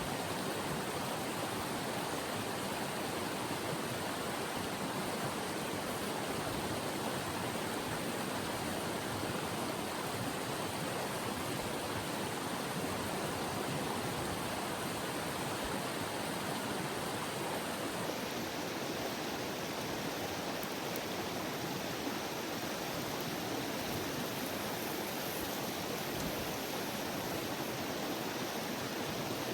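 Mountain river rushing: a steady wash of flowing water, its highest hiss thinning a little about two-thirds of the way through.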